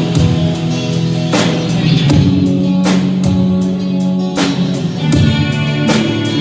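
A live rock band playing instrumentally: electric guitar and bass holding chords over a drum kit, with regular cymbal and snare hits.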